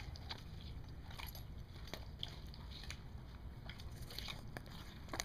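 Siberian husky biting and chewing a watermelon wedge, rind and all: irregular wet crunches and clicks, over a steady low background rumble.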